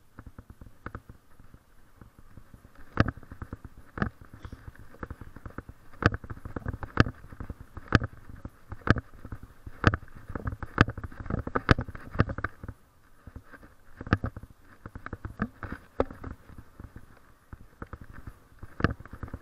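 Walking sounds picked up by a body-worn camera: a sharp tap about once a second in step with the walker's stride on a concrete sidewalk, with rustling between the taps.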